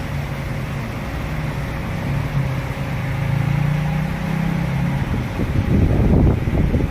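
A motor running steadily with a low hum, turning rougher and louder about five seconds in.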